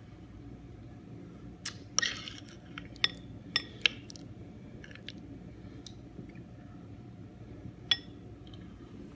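A metal utensil clinking against dishes, a few sharp clinks close together and one more near the end, over a faint steady hum.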